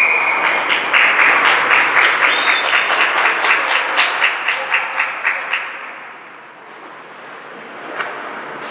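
Spectators at an ice hockey game clapping in a quick, steady rhythm, about four claps a second, slowing a little and dying away after about five seconds. A short whistle sounds just before the clapping starts.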